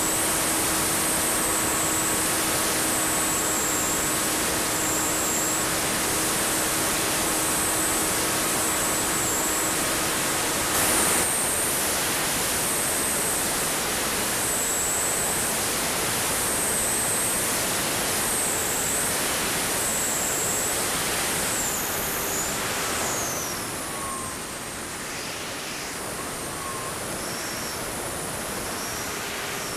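Ritewing Zephyr III flying wing in flight, heard from its onboard camera: a steady rush of wind with the electric pusher motor's high whine wavering up and down with throttle. A little past two-thirds through, the noise drops as power is eased back.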